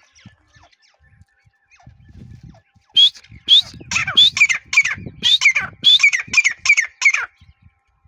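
Grey francolin calling: after about three seconds of quiet, a fast run of about a dozen loud, sharply rising notes over some four seconds.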